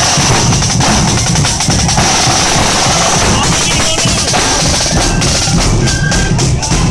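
Marching flute band's side drums and bass drum playing a fast marching beat with drum rolls.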